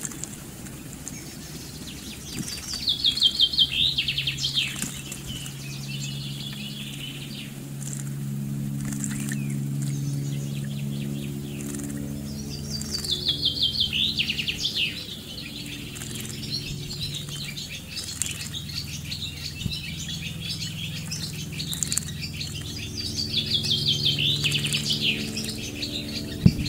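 A songbird singing a descending trilled phrase about every ten seconds, three times in all, while a great tit bathes in a shallow pond, splashing and fluttering its wings in the water. A low steady hum runs underneath.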